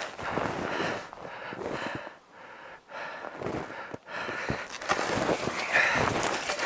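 Footsteps crunching through deep snow as a person walks, with heavy breathing, quieting for about a second a couple of seconds in.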